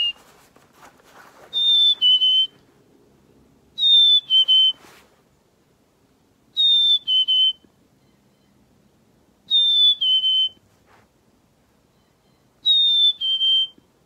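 A person whistling the two-note falling "fee-bee" song of the black-capped chickadee, repeated five times about every three seconds, to call chickadees in to seed held in the hand.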